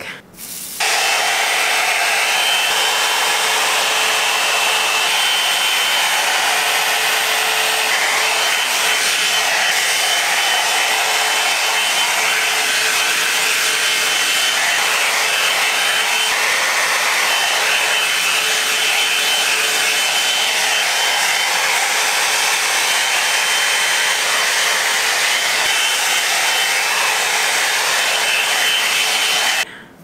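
Drybar Double Shot Oval blow-dryer brush running on a steady setting: a loud rush of air with a constant motor hum and a thin high whine. It switches on about a second in and cuts off just before the end.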